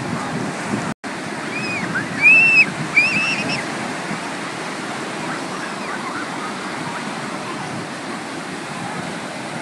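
Ocean surf washing in and out on the shore, a steady rushing noise. Between about one and a half and three and a half seconds in, several short rising-and-falling shouts from children carry over it. The sound drops out completely for an instant about a second in.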